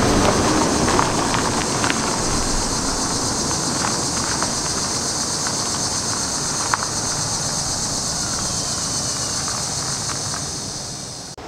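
Steady evening insect chorus, a constant high-pitched shrill, over a loud low rumble that eases off near the end.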